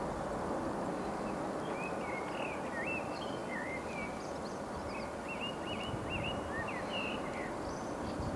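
A small bird chirping in a string of quick rising and falling notes over a steady rushing rumble of wind and the distant engines of a jet airliner on final approach.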